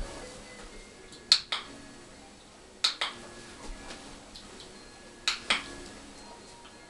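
Dog-training clicker clicked three times, each a sharp double click (press then release), marking the dog's correct behaviour.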